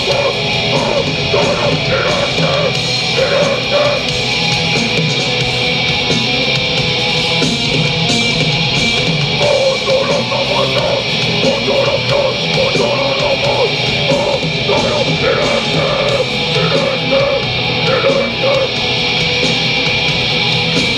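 Heavy metal band playing live, with distorted electric guitars, bass and drums, loud and unbroken.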